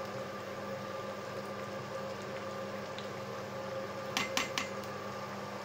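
Steaming pot of chicken and mushroom sauté simmering, under a steady hum. A spatula stirs it and clinks against the pot a few times about four seconds in.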